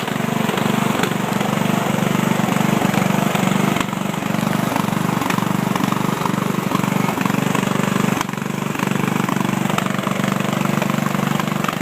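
Riding lawn mower engine running steadily, with brief dips in loudness about four and eight seconds in.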